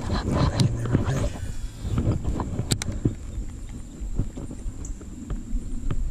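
Irregular clicks and knocks of fishing tackle and a baitcasting reel being handled aboard a kayak, over a low rumble. One sharper click comes a little under three seconds in.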